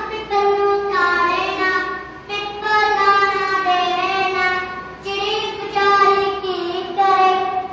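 A young child singing solo in phrases of long held notes.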